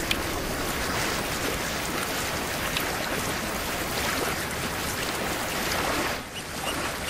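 Running water with drips falling into a pool beneath ice, a steady rushing wash with a few faint drip ticks. It drops away briefly about six seconds in.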